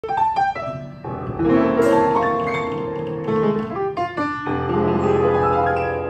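Upright piano playing an introduction: a few short notes, then chords that ring on.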